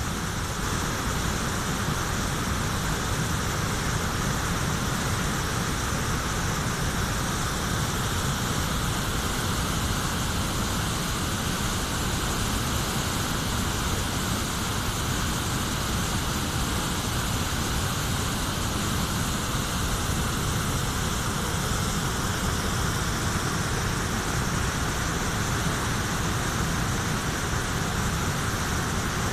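Steady rushing of a high river pouring over a weir and churning in whitewater below.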